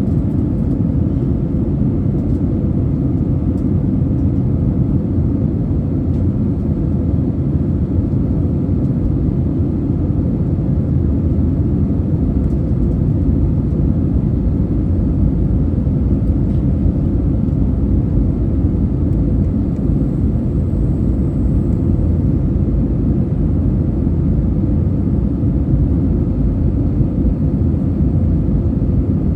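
Steady cabin noise inside an Airbus A320 on descent: a deep, even rumble of the engines and the airflow past the fuselage, with a faint steady hum above it.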